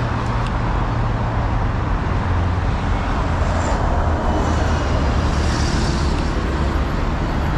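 Rush-hour traffic on a busy multi-lane road: a steady rumble of passing cars, with a bus going by close about four seconds in.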